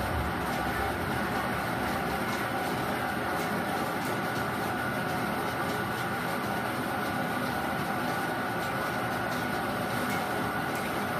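Bingo blower machine running: its air blower makes a steady rushing hum with a faint held whine, while the bingo balls rattle and click against the steel-wire cage as they are blown around.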